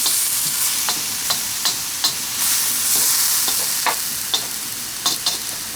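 Chicken and garlic sizzling in a pan over high heat, with a steady hiss and short sharp clicks of a utensil scraping and knocking against the pan as the food is stirred.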